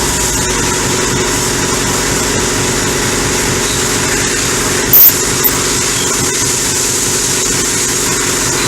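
Longtail boat's Isuzu 4JJ1 turbo diesel engine running steadily at a constant speed, with one short, sharp pop about five seconds in.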